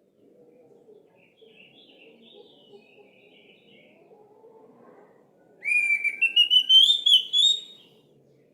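Orange-headed thrush singing: soft twittering notes, then about halfway through a loud two-second phrase of quick repeated notes that climbs steadily in pitch.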